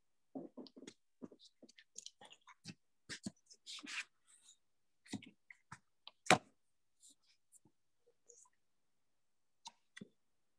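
Scattered faint clicks and soft knocks at uneven intervals, with one sharp, much louder click a little past the middle.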